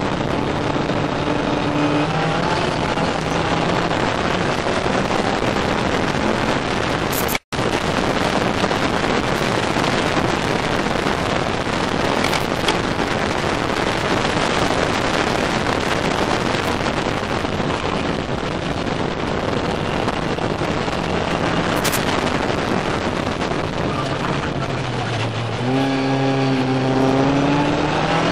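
Ginetta race car at speed heard from inside the cockpit: the engine running hard under loud wind rush, its note rising near the end as the car accelerates. The sound cuts out for an instant about seven seconds in.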